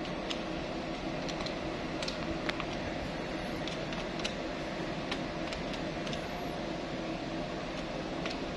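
Scattered light clicks of calculator keys tapped with a pen tip on a Woodman desktop calculator, over a steady machinery hum aboard ship.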